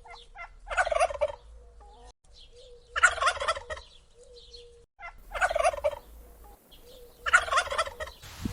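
Domestic turkey gobbling four times, about two seconds apart.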